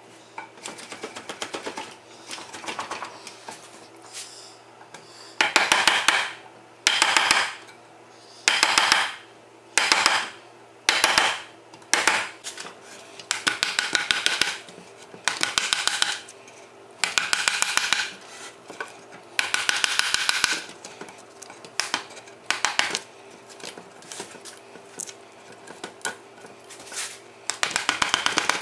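Wooden mallet driving a steel chisel into pressure-treated lumber, paring out a saw-cut notch in a post: a dozen or so short spells of quick, sharp knocks with pauses between them.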